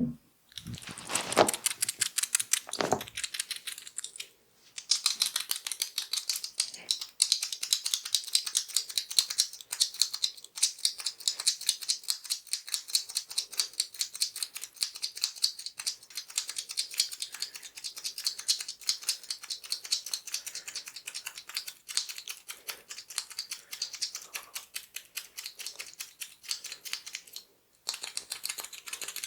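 Fast, crisp clicking close up to the microphone, many clicks a second, with a short break about four seconds in and another near the end.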